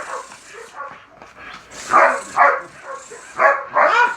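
A dog barking: four short barks in two pairs, the first pair about two seconds in and the second near the end.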